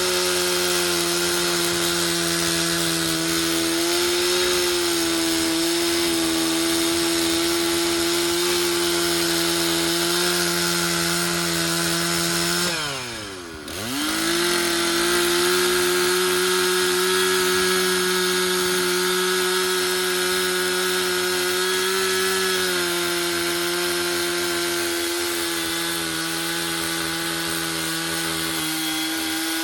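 Stihl 066 two-stroke chainsaw with a 32-inch bar running at full throttle, cutting into a cottonwood log. About halfway through, the engine speed drops sharply for about a second, then climbs back up to full revs.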